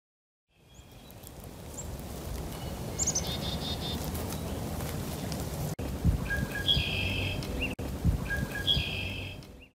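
Outdoor prairie ambience: small birds chirping in short runs of quick repeated notes a few times, over a low wind rumble on the microphone that gusts near the end.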